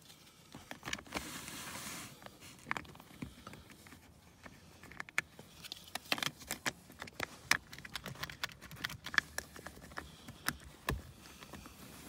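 Small plastic clicks and rattles from a 2013 Toyota Prius v rear seat belt buckle as its plastic cover is fitted back over the latch mechanism and pressed into place, with one stronger knock near the end.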